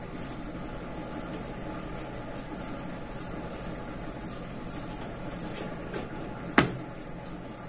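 Whiteboard being wiped with a handheld duster, under a steady high pulsing trill that carries on throughout. One sharp knock about six and a half seconds in.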